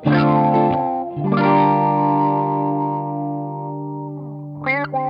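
Two electric guitars playing together, at least one through a SolidGoldFX Supa Funk envelope filter. A chord is struck about a second in and left ringing as it slowly fades, then short picked notes come near the end.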